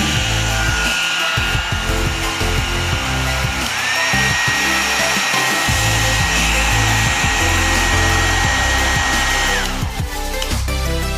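Syska hair dryer running: steady blowing rush with a thin motor whine. About four seconds in the whine steps up to a higher pitch, and near the end the dryer cuts off, the whine sliding down as it stops. Background music with a bass beat plays throughout.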